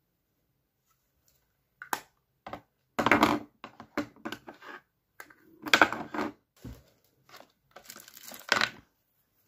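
Makeup items being handled: a string of short rustles and clicks, starting about two seconds in, with louder bursts near the middle and near the end.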